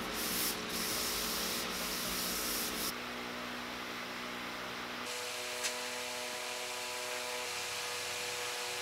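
Hand sanding and rubbing on the polyurethane-finished walnut tabletop, a steady scratchy sound of a pad and cloth worked across the surface, done between finish coats. The sound changes abruptly about three and five seconds in and is quieter in the second half, with a faint steady hum underneath.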